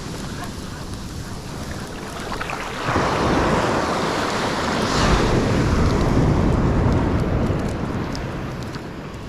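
Ocean surf: a wave breaks about three seconds in, grows loudest around five seconds and slowly washes out, with wind on the microphone.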